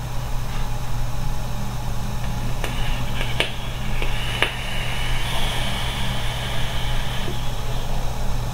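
Vaping: a few faint clicks while the vape is drawn on, then a soft breathy hiss as a big cloud of vapour is exhaled, over a steady low hum in the room.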